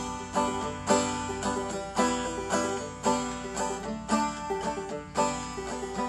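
Banjo music: a plucked banjo picking a steady tune, with a strong accented note about every half second.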